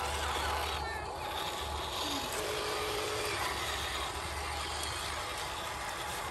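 Small electric motor and gearbox of a radio-controlled crawler truck whirring as it drives through mud, over steady outdoor noise.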